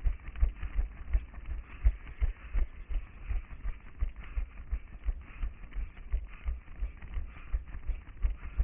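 A runner's footfalls on paved pavement, picked up through a head-mounted action camera as regular low thumps, about three a second, at a running stride, over a steady hiss.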